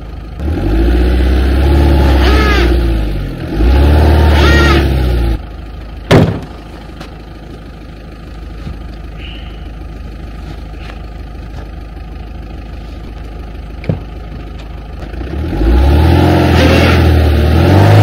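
Camper van engine revving up twice as the van is backed a short way in snow, then a single loud slam like a vehicle door shutting. The engine then idles steadily and revs up again near the end.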